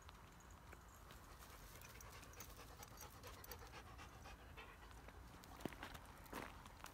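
Kangal dogs panting faintly, with a couple of short sharp clicks near the end.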